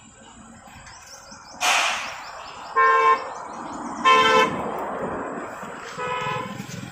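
A vehicle horn honking three short times, a second or more apart. About a second before the first honk there is a brief loud rush of noise, and a low rumble runs under the later honks.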